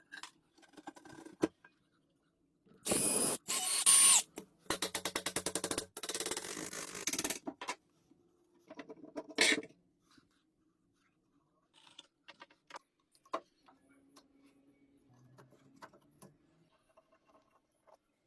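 Hand-tool work noise: several seconds of loud hissing bursts and a fast, even rattle, then a short burst and scattered small clicks and knocks.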